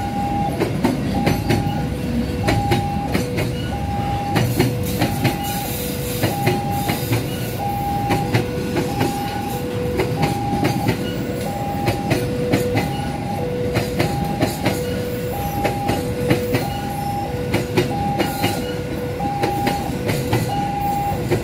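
Container freight train wagons rolling past, a steady rumble with wheels clacking over the rail joints. Over it, the level-crossing warning alarm sounds its two-tone signal, a higher and a lower tone alternating about once a second.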